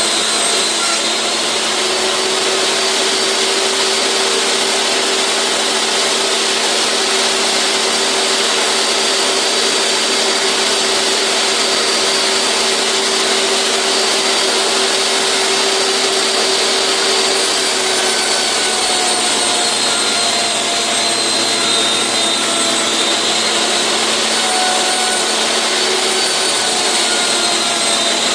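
Table saw running steadily while cutting 1/8-inch plexiglass, its pitch shifting slightly partway through as the load changes.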